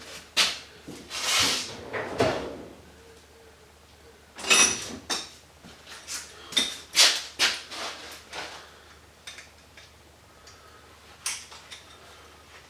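Brass sprinkler heads and fittings being handled, clinking and clattering against each other and hard surfaces in irregular knocks. A few clinks ring briefly, and the knocks thin out after about nine seconds.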